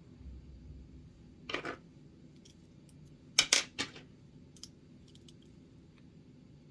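Scattered sharp clicks and light ticks of small screws and plastic parts being handled during an RC crawler axle rebuild. The loudest is a quick double click about three and a half seconds in.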